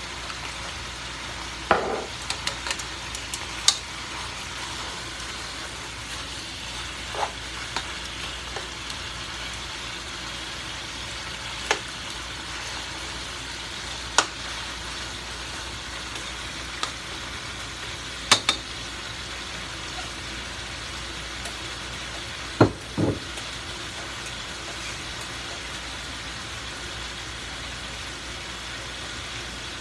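Rabbit pieces sizzling as they sauté in butter in a pot, a steady hiss, with scattered sharp clinks of metal tongs against the pot; the loudest clinks come as a close pair about two-thirds through.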